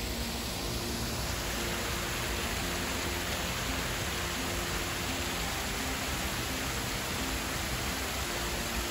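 Small cascading waterfall: a steady rush of water splashing down rocky ledges, growing a little fuller about a second in.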